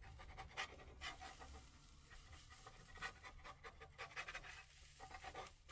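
Metal spatula scraping and clicking against a nonstick frying pan as it works under a hash brown omelet to loosen it for flipping: faint, irregular scrapes and taps.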